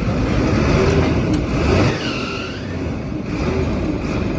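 Vehicle engine running steadily, with a single metallic tick about a second in.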